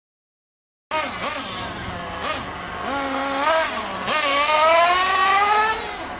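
Small nitro engines of radio-controlled on-road cars running on track, their high pitch dropping and rising again as the throttle is eased and reopened through the corners, then one long rising whine under full throttle. The sound starts suddenly about a second in.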